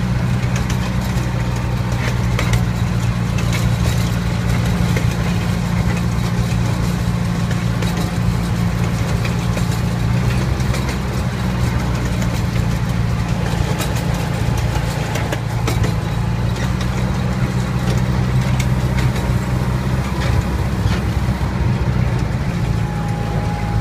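Miniature ride-on train heard from aboard while moving: a steady engine hum, with occasional light clicks and rattles.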